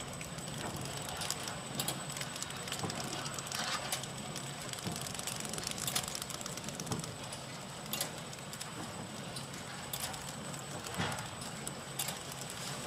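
Horizontal flow wrap packaging machine running: a continuous mechanical clatter with irregular clicks and knocks over a low steady hum.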